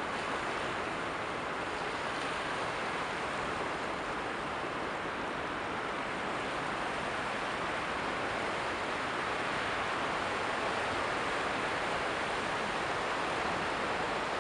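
Steady, even rushing of open-air water and wind noise, with no distinct engine note or other events.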